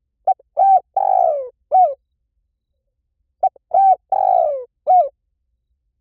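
Spotted dove cooing: two phrases about three seconds apart. Each phrase is a few short coos around one longer coo that falls in pitch.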